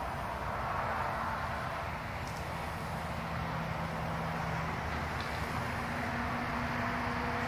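Steady background rumble and hiss with a faint low hum, with no distinct events.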